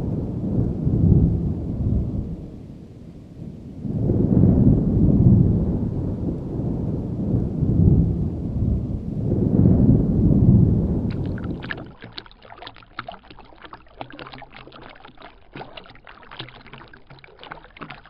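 Deep rumbling that swells three times, like thunder. About two-thirds of the way in it cuts off abruptly to a much quieter run of fine crackling clicks.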